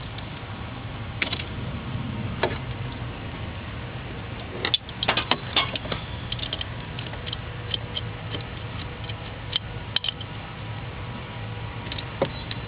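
Scattered small clicks and light metallic rattles of hand tools and wiring being handled, with a quick cluster of sharper clicks about five seconds in, over a steady low hum.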